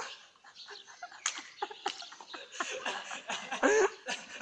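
A man laughing softly in short, breathy bursts.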